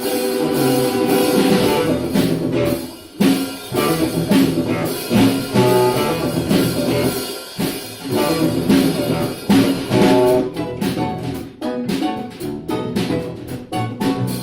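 Instrumental ensemble playing an upbeat piece, pitched melody over a drum beat, with the drum strokes coming thicker and faster in the second half.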